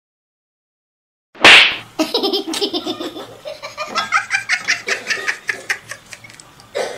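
A sudden loud burst about a second and a half in, followed by laughter in a run of short, repeated bursts.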